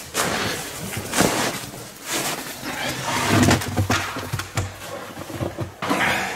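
Irregular scraping, scuffing and clothing rustle from someone clambering in through a window opening, with a few sharp knocks against the frame and sill.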